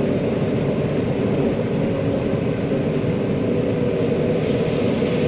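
Combine harvester running steadily at working speed: an even mechanical drone with a faint steady whine over it.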